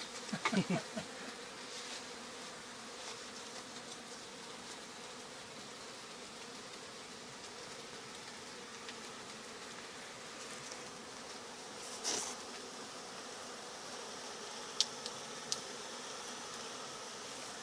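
Honeybees buzzing in a steady, even hum. There is a brief knock about twelve seconds in and a few sharp clicks soon after.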